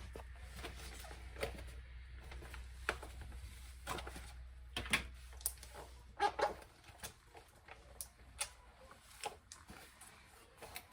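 Scattered light clicks and knocks of kitchen items being handled, about a dozen spread irregularly, over a low steady hum that fades out about six seconds in.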